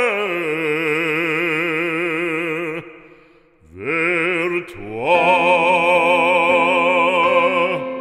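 A classical solo singing voice holding long, sustained notes with wide vibrato. It fades out about three seconds in, then slides up into a new held note that stops just before the end.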